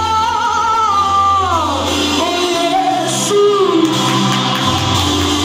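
Live group singing with instrumental backing: a high voice holds a wavering note, then slides down about a second and a half in, and other voices carry on the melody over sustained low notes.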